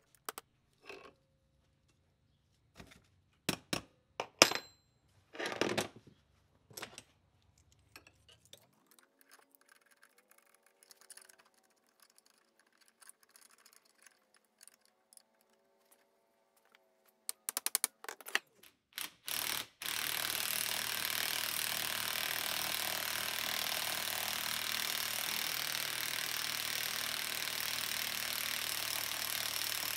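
Hand tools clinking and knocking against a bench grinder's metal shaft and guard as it is taken apart. About two-thirds of the way in, a steady, louder mechanical noise starts and holds.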